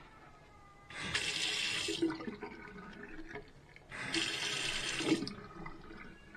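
Bathroom sink faucet turned on and off twice, water running into the basin for about a second each time.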